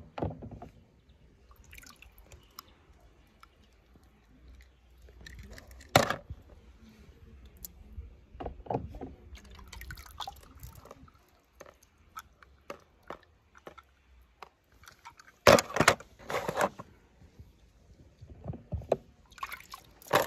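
Toy cars being handled, with scattered light clicks and knocks. A sharper knock comes about six seconds in, and a cluster of louder knocks follows near the end.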